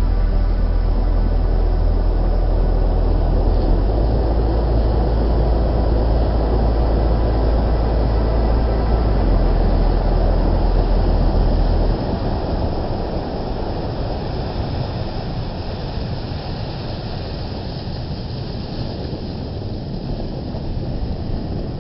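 Rough, stormy sea surf with wind buffeting the microphone: a steady rushing noise. A deep bass line from the background music runs underneath for about the first half and cuts off suddenly about halfway through.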